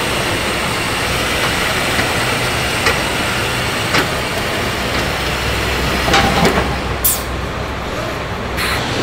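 Truck assembly-hall ambience: a steady hum of machinery with scattered clicks and knocks, and two short hisses near the end.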